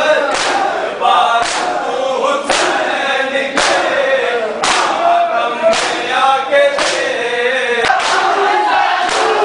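A crowd of men chanting a noha together while beating their chests with open palms in unison in matam. The chest strikes land as sharp slaps about once a second, over the continuous group chant.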